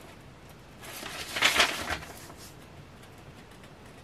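Large sheets of thick cardstock sheet music rustling and sliding against each other as they are leafed through by hand, in one burst of about a second near the middle.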